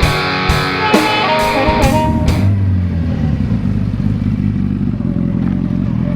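Rock music with electric guitar and drum hits, ending about two and a half seconds in, followed by a motorcycle engine running steadily.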